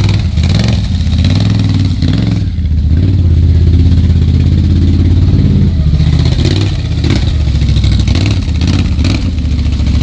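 Can-Am Renegade ATV's V-twin engine running at low speed. It grows a little louder for a few seconds, starting about a quarter of the way in, then settles back.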